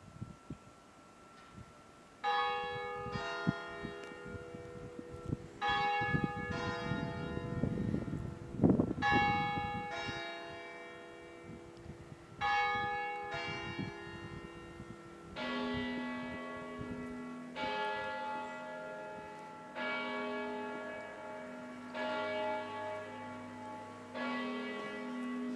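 Several church bells ringing, struck one after another with long ringing decays. From about fifteen seconds in a deeper bell takes over, sounding about every two seconds, and a brief low rustling noise comes around eight seconds in.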